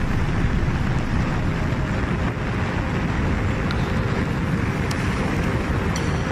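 Steady wind noise on the microphone of a moving motorcycle, over the running of motorcycle engines in the group ride.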